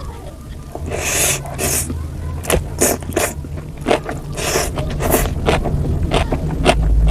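Close-miked eating sounds of noodles: wet chewing clicks and smacks, with a few longer noisy slurps about a second in and again a little past the middle, over a steady low hum.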